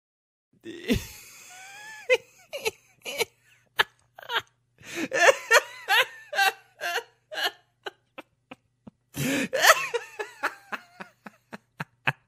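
A person laughing in repeated bursts, ending in a string of short, quick pulses.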